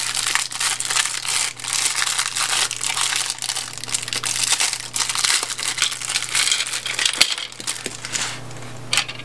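Thin clear plastic packaging bag crinkling as it is handled and opened, continuing for about eight seconds. Near the end, a couple of light clicks as small plastic toy pieces are set down.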